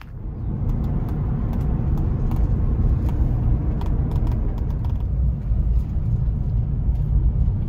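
Steady low road and engine rumble inside a moving Jeep Wrangler's cabin, starting abruptly, with a few faint clicks over it.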